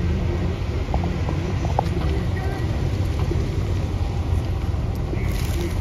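Steady low rumble of street traffic mixed with wind buffeting the microphone, with a brief hiss shortly before the end.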